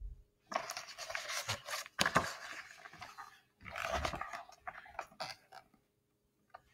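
Stiff picture-book pages and a large painted sheet being shuffled and turned close to the microphone: two stretches of papery rustling and scraping, the first about three seconds long and the second about two.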